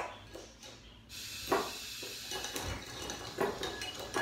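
Food sizzling in a frying pan on a gas stove, the steady hiss starting about a second in, with a few light knocks and clinks of kitchenware.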